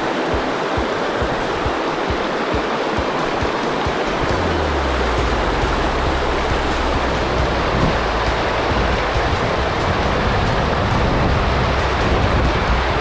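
Rushing river water, a loud, steady wash of noise. About four seconds in, a low steady hum joins it.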